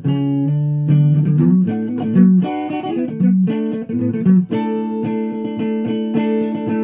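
Guitar playing: a run of separate plucked notes, then a chord held and ringing from about four and a half seconds in.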